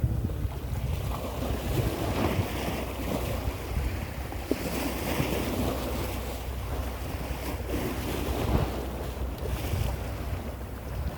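Wind rumbling on the microphone over sea waves washing, steady with small gusts.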